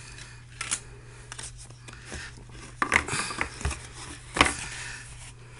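Hands handling a cardboard phone box and its inserts: scattered rubs, scrapes and taps, the loudest about four seconds in, over a faint steady low hum.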